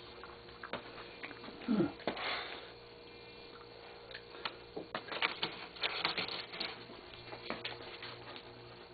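Hand-sanding a small piece of wood: short, irregular scratchy strokes with light clicks and taps, over a faint steady hum.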